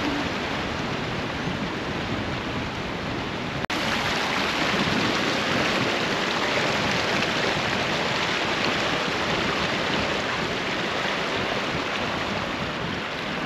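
Creek water rushing steadily over rocks, with a momentary break about four seconds in.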